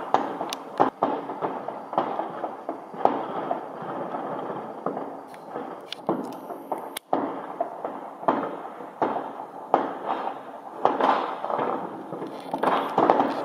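Fireworks: a dense, continuous crackle of firecrackers and bursting rockets, with louder sharp bangs falling irregularly about once a second.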